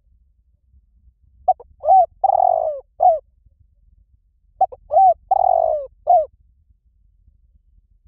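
Spotted dove cooing: two phrases about three seconds apart, each of four notes, the third note longer, rougher and falling in pitch.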